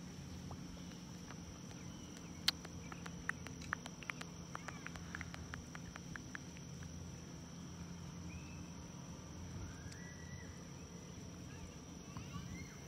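Insects buzzing in a steady high drone over a low rumble, with a quick run of sharp clicks a few seconds in and faint distant voices toward the end.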